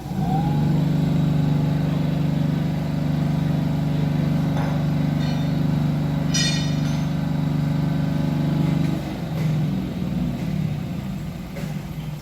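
Vibration test stand for shock absorbers running, shaking a Lada Vesta SW's wheels with a loud steady hum. It starts abruptly, a short high chirp comes about six seconds in, and the hum drops away about nine seconds in as the stand winds down.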